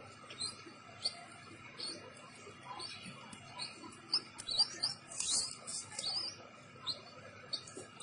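Hand-reared orphan nestling bird cheeping in short, high chirps, one or two a second and coming faster about four to six seconds in, as it begs with fluttering wings. A brief rustle of flapping comes about five seconds in.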